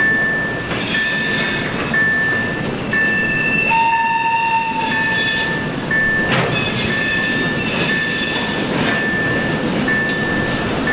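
ChME3 shunting diesel locomotive running as it hauls freight wagons. A level-crossing warning signal sounds a steady high tone, broken about once a second. About four seconds in, the locomotive's horn gives one blast of about a second and a half.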